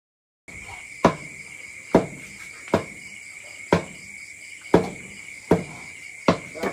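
Knives chopping pork belly on wooden chopping boards, a sharp knock about once a second. Under them runs a steady high chirring of crickets.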